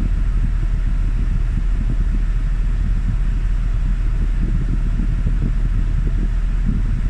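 Toyota Tarago van's air-conditioning blower pushing air out of a dashboard vent, a steady rush with a low rumble underneath, as the freshly recharged system runs.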